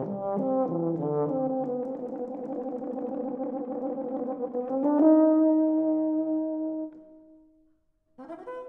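Euphonium solo with piano accompaniment in a slow, lyrical classical movement. A quick run of notes leads into a dense blurred passage, then a loud held note about five seconds in dies away into a brief silence. New notes come in near the end.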